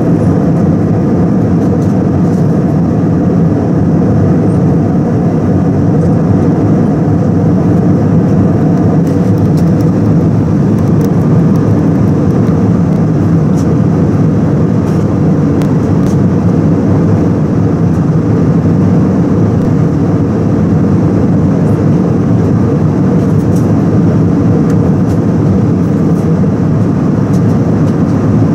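Steady cabin noise of an Airbus A319-111 in high-altitude flight, heard from a window seat by the wing: the constant drone of its CFM56-5B turbofan engines and the airflow over the fuselage, mostly low-pitched and unchanging.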